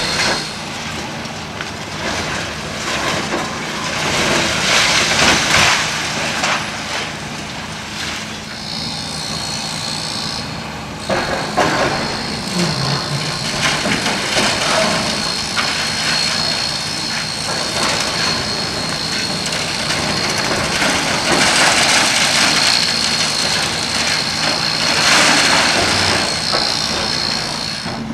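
Demolition machinery at work: a diesel engine running steadily, with several loud bursts of crashing and grinding rubble. A steady high whine runs through the second part.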